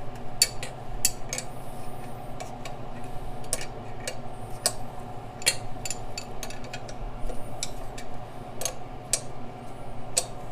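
Sharp metallic clicks and clinks at irregular intervals from a wrench turning a pair of jammed nuts on an exhaust manifold stud, over a steady low hum.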